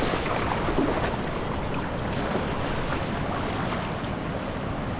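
Shallow surf washing and splashing around a wader's legs, with steady wind noise rumbling on the microphone.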